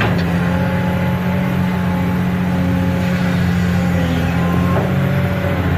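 A toy's steady, even motor hum, low and unchanging.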